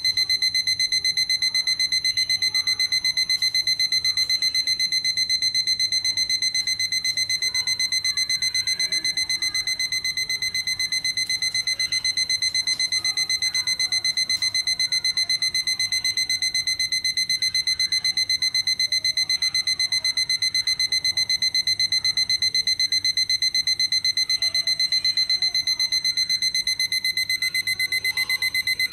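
Citizen 4ML400 wall clock's electronic alarm going off: a high beep repeated in a rapid, even string that runs on without a break.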